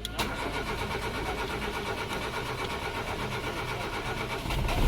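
Renault Logan's starter motor cranking the engine steadily for about four and a half seconds, with a click as it engages; the engine catches and runs louder near the end. It is starting on natural gas (CNG) after a broken ground wire on the CNG kit's switch box was spliced, the fault that had kept it from starting.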